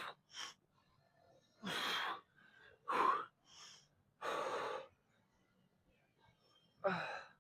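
A man's heavy breathing while lifting weights: a series of short, forceful breaths, several in the first five seconds and one more near the end.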